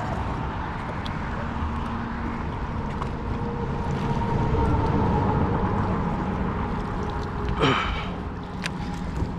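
Wind buffeting the microphone on an open boat, a steady low rumble with faint steady hums under it. A short sweeping sound cuts through about eight seconds in.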